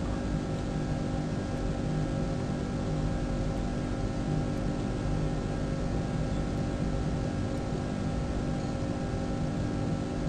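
A steady machine hum: several constant tones over a low rumble and an even hiss, unchanging throughout.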